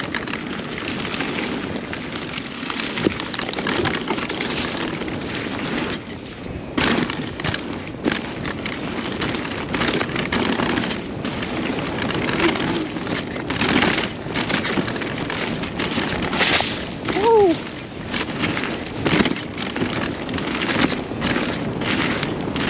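Mountain bike riding down a wet, rooty and rocky trail: steady tyre and trail noise with frequent knocks and rattles as the bike hits roots and rocks, and wind on the microphone. A short falling tone sounds about seventeen seconds in.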